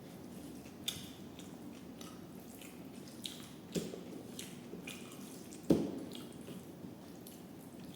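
Close-up wet eating sounds from a meal of rice and dal: soft squishy chewing with scattered mouth clicks and smacks, and one sharper knock a little past halfway.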